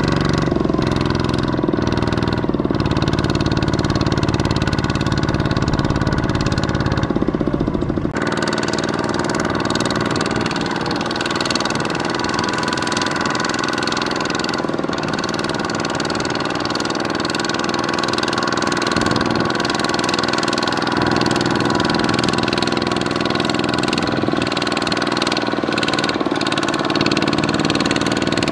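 Single-cylinder diesel engine of a two-wheel walking tractor running steadily under load as it hauls a loaded trailer through wet paddy mud. About eight seconds in the sound changes abruptly, the deep engine note giving way to a brighter, noisier one.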